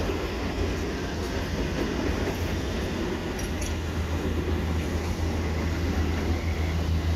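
Steady low engine rumble with a deep droning hum that grows stronger about halfway through, over a noisy wash.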